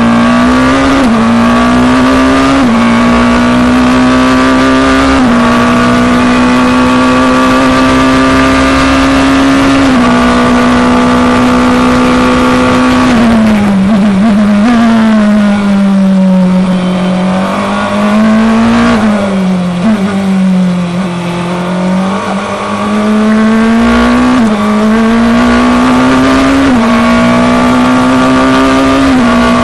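Onboard sound of a FIA Formula Two car's turbocharged 1.8-litre four-cylinder engine at racing speed. It holds steady near the top of its revs for long stretches, drops twice around the middle as the car brakes and shifts down, then climbs back up through the gears with quick upshifts near the end.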